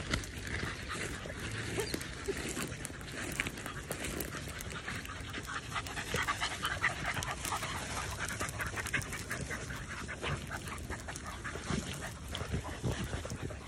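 Beagles panting close by as they push through dry grass and brush, with a steady crackling rustle of dry stems.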